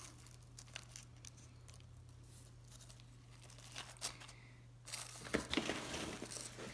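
Fir bark orchid mix being handled and dropped around the plant in its pot: scattered light clicks and rustles, then a louder stretch of rustling about five seconds in.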